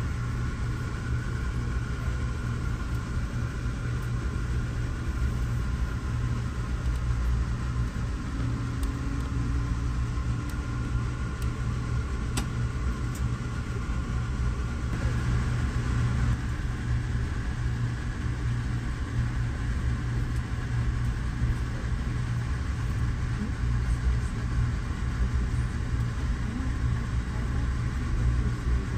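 Steady low rumble of a moving vehicle, running evenly without a break.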